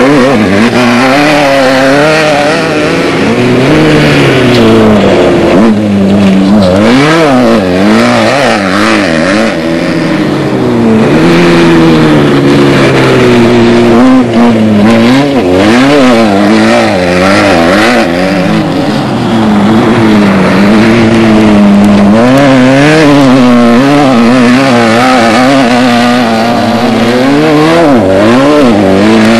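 Off-road desert race vehicle engines running hard and loud, the engine pitch rising and falling over and over as the throttle is worked on and off.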